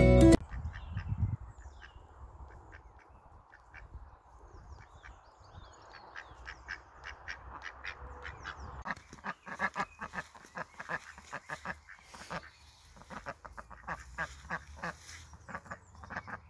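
A drake (male duck) calling: a long run of short, quiet calls, a few a second, growing busier about halfway through.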